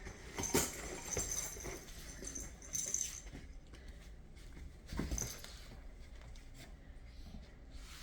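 A kitten playing with toys: scattered light knocks and rattles, with the clearest about half a second, three and five seconds in.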